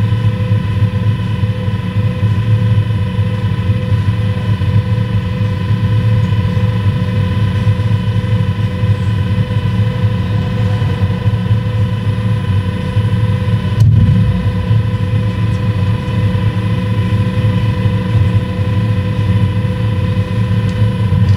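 Camera drone's propellers whining steadily while it hovers: an even, unchanging drone of several pitched tones over a low hum, with a brief break about fourteen seconds in.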